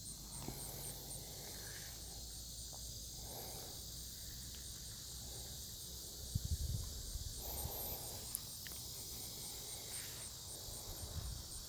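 Insects, crickets by the sound, chirping in a steady high-pitched chorus with a fast, even pulse. A few low thumps come about six seconds in and again near the end.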